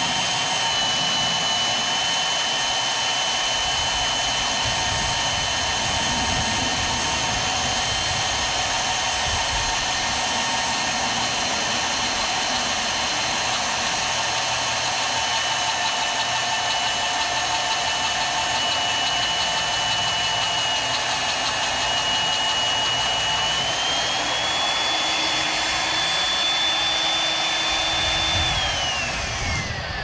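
Magnetic drill (mag drill) running under load as it cuts a hole through steel, a steady high motor whine over a constant cutting noise. Near the end the motor is switched off and the whine falls away.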